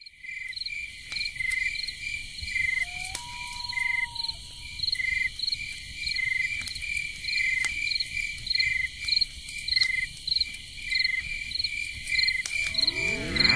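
Cricket chirping, short even chirps about three a second over a steady high ringing, with scattered light clicks. Near the end a swirling sound effect begins.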